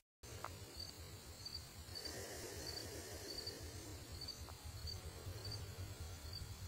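Faint, evenly repeating high chirps of an insect, one roughly every two-thirds of a second, over a low steady rumble.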